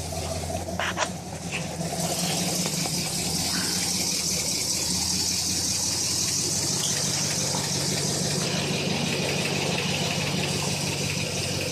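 1968 Ford Fairlane's engine idling steadily, with a couple of short knocks about a second in.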